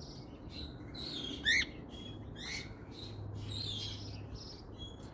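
Pet birds chirping and calling in quick, overlapping short notes, with one louder rising call about a second and a half in. A low steady hum runs underneath from about two seconds in.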